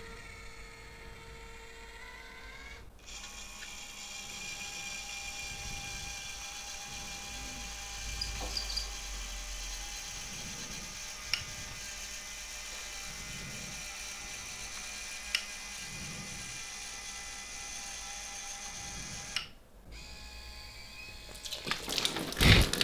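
Small electric motors of a homemade rail-riding robot cart whirring steadily with a high whine, with a couple of sharp clicks. Loud laughter breaks in near the end.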